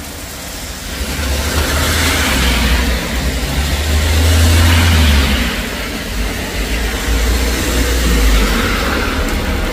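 Cars driving past on a rain-soaked road, their tyres hissing through standing water over a low engine rumble. The hiss swells to its loudest a few seconds in and rises again near the end.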